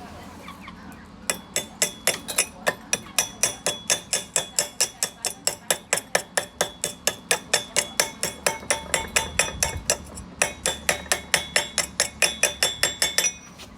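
A hammer striking steel rapidly and repeatedly, about four to five blows a second, each one ringing metallically. The blows start about a second in, pause briefly near the middle, and go on almost to the end.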